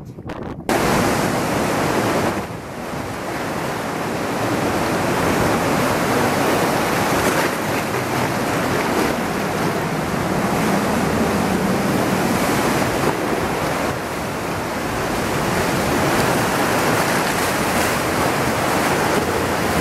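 Steady loud rush of ocean surf and churning sea water, with wind buffeting the microphone. It starts abruptly about a second in.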